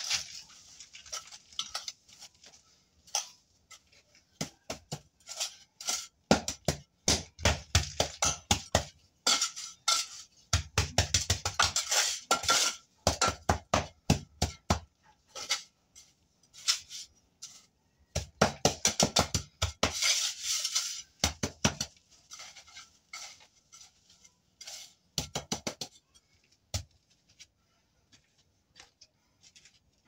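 Mason's trowel scraping and scooping gritty sand and rubble across a rough concrete floor: several bursts of quick scraping strokes with small metallic clinks, thinning to scattered scrapes near the end.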